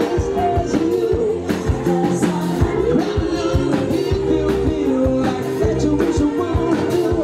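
Loud dance music with a steady beat and a singing voice carrying the melody.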